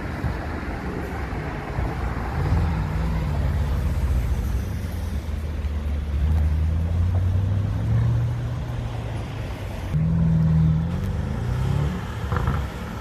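Brabus B40S-800, a tuned Mercedes-AMG S-Class twin-turbo V8, running by and accelerating away. The engine note climbs in pitch several times, with the loudest surge about ten seconds in.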